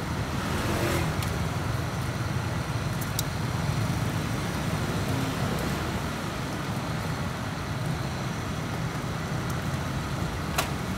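Steady low traffic rumble, with meat sizzling on an open grill and a few sharp clicks of metal tongs on the grill rack, the loudest click near the end.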